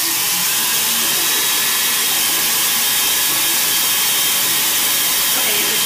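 Electric tilt-head stand mixer running steadily at speed, its motor giving a constant whirring hiss with a faint high whine while it beats egg whites.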